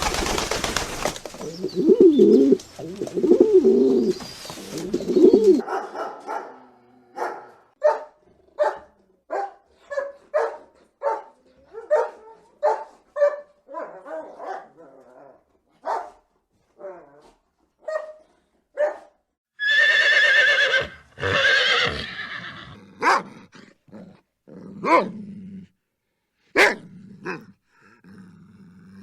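A run of animal calls, mostly a dog barking in short, repeated barks about once a second, with a couple of longer drawn-out calls from another animal partway through.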